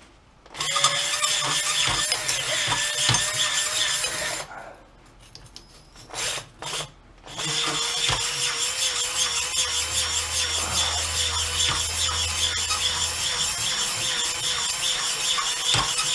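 Power-driven stone hone spinning inside a motorcycle's cast iron cylinder bore, the stones grinding against the wall over a steady motor whine. It runs for about four seconds, stops apart from two brief bursts, then runs again steadily from about seven seconds in. This is the final honing that puts a crosshatch in the freshly bored cylinder.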